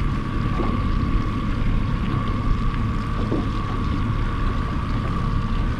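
Outboard motor running steadily at trolling speed, with water washing along the hull and a steady high whine.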